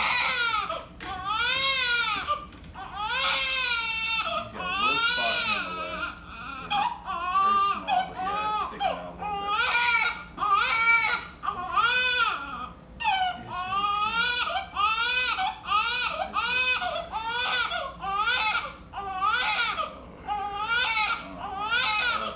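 Newborn baby crying: a continuous run of short, high-pitched wails, each rising and falling, about one a second.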